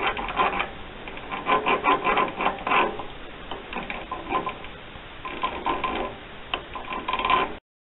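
Change-gear train of a 9x20 metal lathe, with a plastic gear and an idler cluster on the banjo, running and clattering unevenly in spurts as a hand presses on the gears. The noise is the sign of misaligned gears, which the owner suspects have too much loose play. It cuts off abruptly just before the end.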